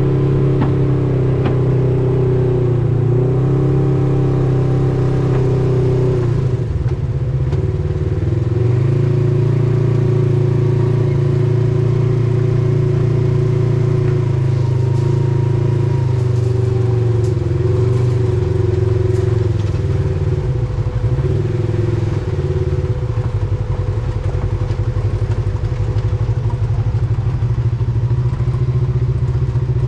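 Vehicle engine running steadily while under way, its pitch dipping and picking back up a few times as the throttle eases and opens again.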